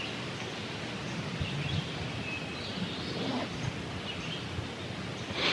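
Woodland ambience: faint small-bird chirps over a steady background rush, with a short rustle at the very end.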